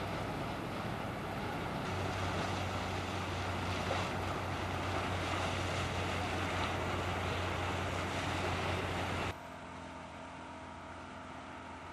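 A motorboat engine runs steadily over wind and water noise. The sound drops suddenly about nine seconds in to a quieter steady hiss.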